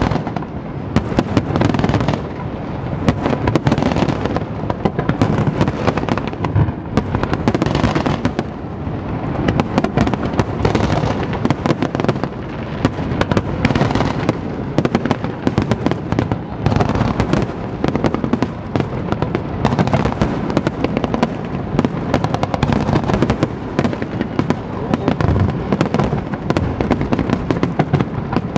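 Fireworks display: many shells bursting in quick, near-continuous succession, bang after bang with no let-up.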